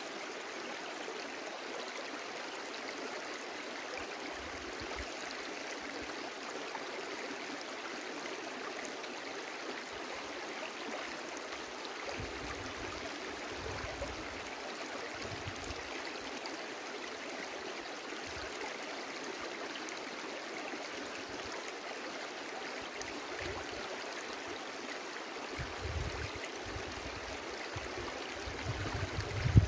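Small brook flowing steadily, an even rushing and gurgling of water. Occasional low rumbles come through, with a brief louder low bump at the very end.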